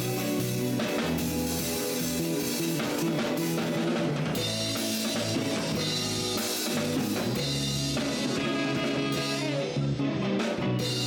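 Band music with drum kit, electric guitar and bass playing a steady groove.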